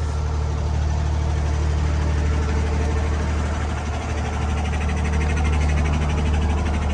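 Diesel truck engine running with a steady low drone.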